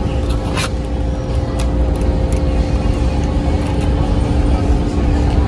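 Steady low rumble and a constant hum of store ambience, with a few light clicks.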